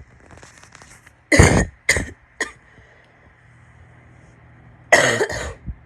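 A woman coughing wet, barky coughs: a quick run of three about a second in, then a doubled cough near the end.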